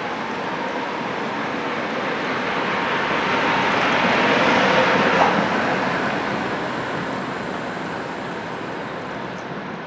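Tatra T2 tram pulling away and passing close, the noise of its wheels on the street rails and its running gear swelling to a peak about halfway through, then fading, with a brief click just after the peak. A modern articulated low-floor tram rolls in behind it.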